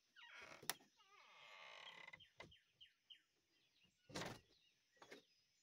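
Faint songbirds chirping: a warbling phrase, then a run of short, quick chirps. A brief loud bump comes about four seconds in.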